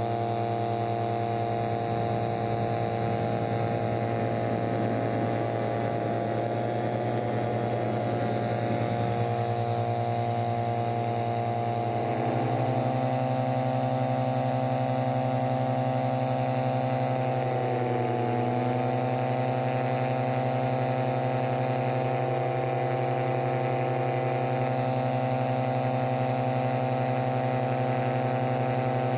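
Paratrike's propeller engine running steadily in flight. Its pitch steps up slightly about twelve seconds in, then dips briefly and recovers a few seconds later.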